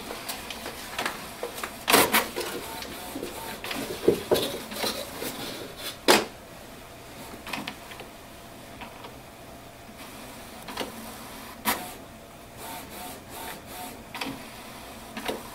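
Canon MAXIFY MB2020 inkjet printer printing its automatic printhead alignment page: the paper feed and printhead carriage run mechanically, with sharp clacks at irregular moments, the loudest about two, six and twelve seconds in.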